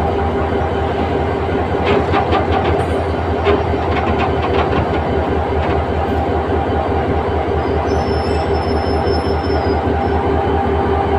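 A 1500 HP diesel locomotive runs along the track, its engine droning steadily, with a run of wheel clicks over rail joints about two to five seconds in. A faint high whine comes in briefly around eight seconds in.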